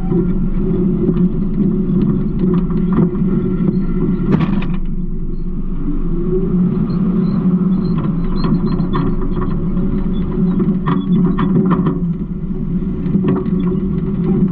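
Garbage truck engine running steadily with a low rumble, with scattered clanks and rattles and one sharp knock about four seconds in.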